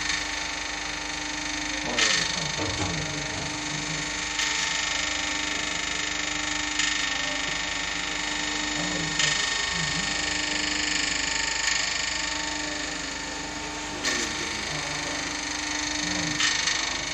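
Otis drum-type kitchen lift's winding drum turning under power, its drive running with a steady hum and hiss. A short knock comes about every two and a half seconds.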